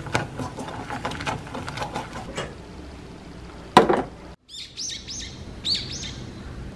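A wooden spoon scraping and tapping against a hammered metal saucepan as glutinous rice-flour paste is stirred, ending in a sharp knock near four seconds in as the pot is set down. Then small birds chirping, a run of quick falling calls.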